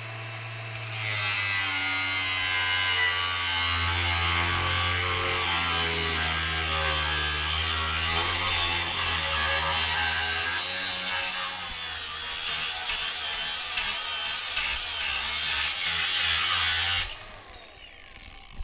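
Milwaukee M18 Fuel brushless cordless angle grinder with a cutoff wheel cutting through a steel bar: about a second in, the wheel bites and a loud, continuous cutting noise runs over the motor's hum, its pitch shifting with the load, until the cut stops near the end. On a 5 Ah XC battery the grinder keeps cutting under load without cutting out.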